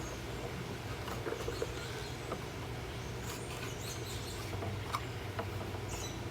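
Scattered small clicks and squeaky creaks of a plastic Hoover vacuum cleaner part being strained by hand, over a steady low hum. The piece is holding and not breaking.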